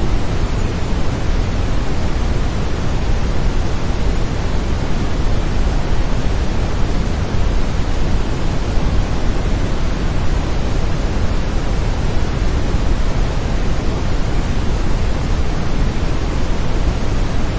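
Steady brown noise: an even, deep hiss weighted toward the low end, unchanging throughout.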